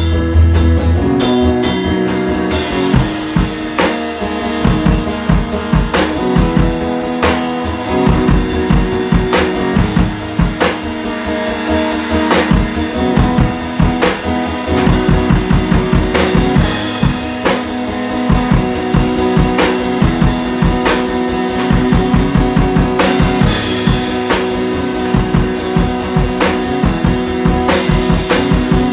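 Live guitar and drums playing together in a loose jam: guitar parts over a steady, driving drum beat.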